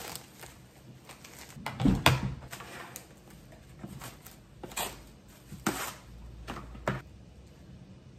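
Kitchen handling noises while food is portioned: a series of short clicks, knocks and rustles, the loudest a knock about two seconds in.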